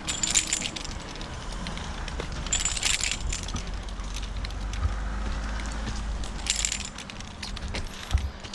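Climbing hardware clinking and jangling in short bursts every few seconds as a tree climber spikes up the trunk and pulls on his rope, over a low rumble.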